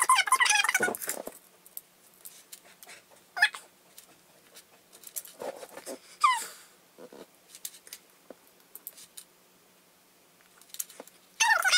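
Short, high-pitched whining calls come in bursts near the start, about three and a half seconds in, and near the end; one about six seconds in glides down in pitch. Faint small clicks fall between them as beads are handled.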